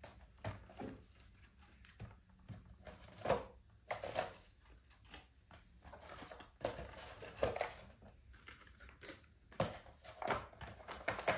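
Light, irregular clicks and taps of small parts being handled as frames are fitted into a mini mating nuc for queen rearing.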